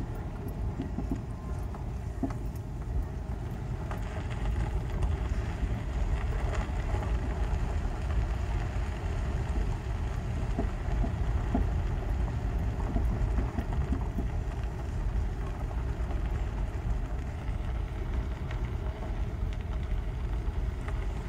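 Car driving slowly on a gravel road, heard from inside the cabin: a steady low rumble of engine and tyres that grows louder about four seconds in, with small scattered crackles of stones under the tyres.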